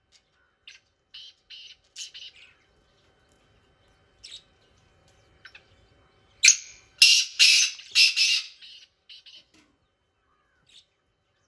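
Caged black francolin calling. A few short, soft notes come first. About six and a half seconds in comes a loud, harsh series of rapid notes lasting about two seconds, followed by a few faint single notes.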